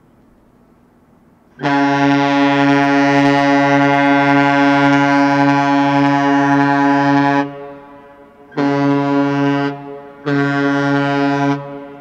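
A 1000-foot Great Lakes freighter's horn sounding the long-and-two-short master's salute: one long, steady blast of about six seconds, then two short blasts.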